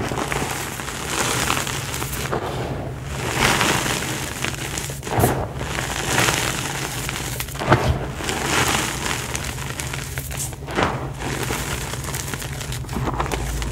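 Bare hands squeezing and crumbling dry, powdery reformed grey dirt: a steady gritty crunching and hiss of falling grains, with a few louder crunches, the loudest about eight seconds in.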